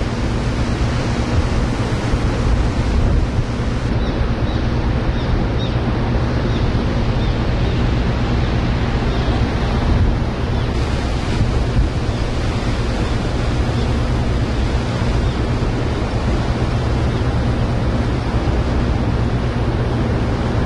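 Steady low hum of the ferry's engines heard from the open deck, under a steady rush of wind and water churning along the hull.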